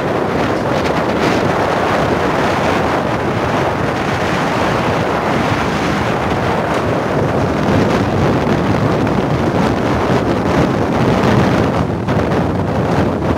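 Strong cyclone wind buffeting the microphone in a steady loud rush, with rough surf breaking beneath it.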